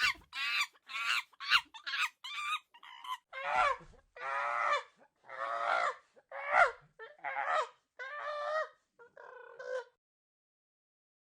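Hen clucking and squawking sound effect: a run of about a dozen separate calls, cutting off to silence near the end.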